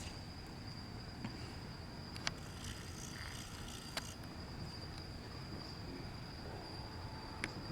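Night insects, such as crickets, trilling in one steady high-pitched note. A few sharp clicks sound at intervals.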